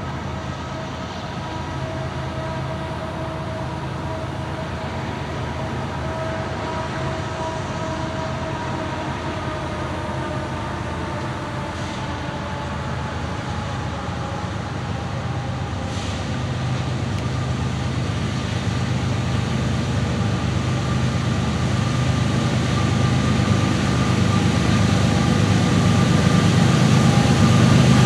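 Diesel locomotive approaching, its engine drone and a steady whine growing steadily louder.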